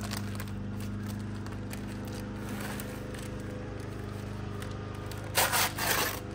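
A paper mailer envelope being ripped open in one sharp tear about five seconds in, over a steady low hum.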